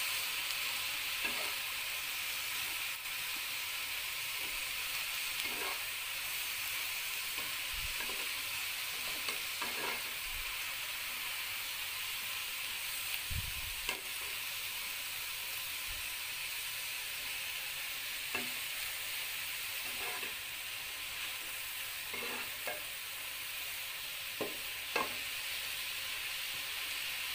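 Napa cabbage, tomato and aromatics sizzling steadily in a nonstick pan cooked without oil, the hiss coming from the juices the wilting vegetables give off. A spatula stirs them, with short scrapes and taps against the pan every second or few.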